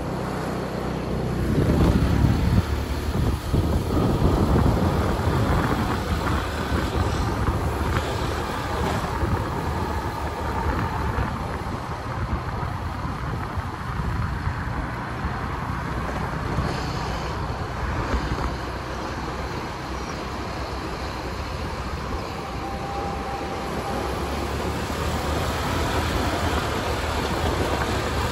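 Steady vehicle and road noise: a low rumble with a hiss over it, growing louder over the first two seconds and then holding.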